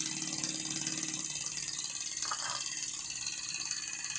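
Retrol R01 1/12-scale Rider-Ericsson hot air engine running very fast, a steady, rapid mechanical clatter, with a brief scrape about two seconds in.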